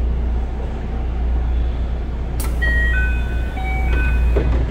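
Steady low hum of a standing electric train. About two and a half seconds in comes a click, then a short electronic chime of several held notes at different pitches.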